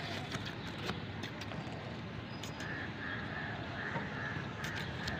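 A kitten mewing in a quick run of short, high cries starting about two and a half seconds in, over a steady background hiss with a few sharp clicks.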